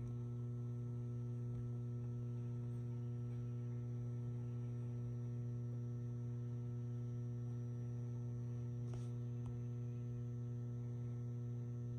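Ballast of a 150-watt high-pressure sodium flood light humming steadily at mains frequency, with a faint high-pitched whine above it.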